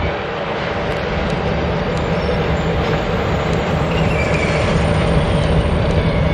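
Baldwin S12 diesel switcher's engine running as it hauls boxcars slowly along the track, growing louder as it approaches. A faint wheel squeal comes in about four seconds in.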